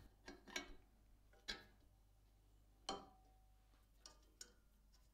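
Faint, scattered metal clicks and taps as a spanner works the pivot bolt of a belt grinder's tracking and tension arm and the steel arm is moved by hand. One tap about three seconds in rings briefly.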